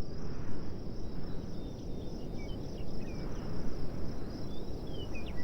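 Steady high-pitched cricket trill with scattered short falling chirps, over a low, uneven rustling noise.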